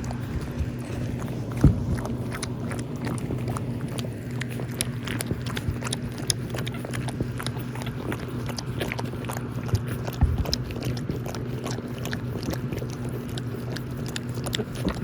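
Jack Russell Pomeranian puppies making many small clicking and chewing sounds over a steady low hum, with a louder knock about two seconds in.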